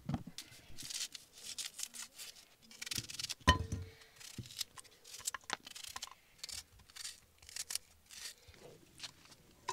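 A knife slicing a raw onion held in the hand, with its papery skin peeled off: an irregular run of short, crisp cuts and tearing. One louder sharp knock about three and a half seconds in.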